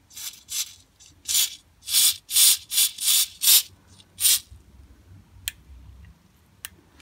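Aerosol carburettor cleaner sprayed in about nine short hissing bursts through a red extension straw into the jet passages of a lawn mower carburettor, to blast the passages clear. Two sharp clicks follow near the end.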